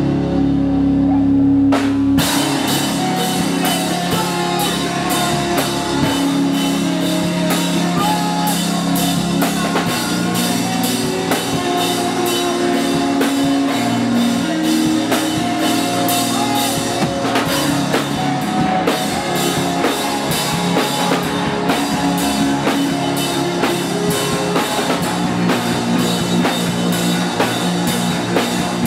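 Live rock band playing electric bass, electric guitar and drum kit, loud. A held low chord opens, then about two seconds in the drums come in with fast, steady hits under the sustained guitar and bass notes.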